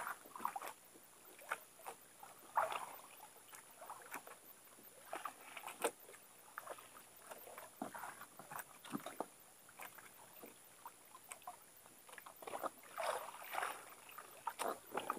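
Faint, scattered light knocks and taps with soft water sounds aboard a small fishing boat.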